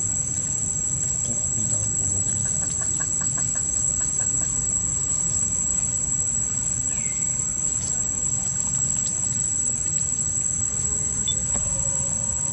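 Steady high-pitched drone of insects over a low rumble, with a short run of quick clicking ticks a few seconds in and a couple of brief faint calls.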